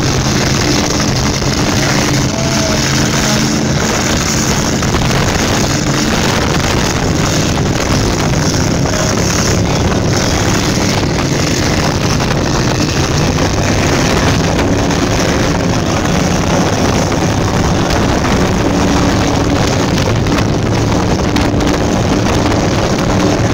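Offshore powerboats running flat out on open water: a steady engine drone under rushing water, spray and wind buffeting on the microphone.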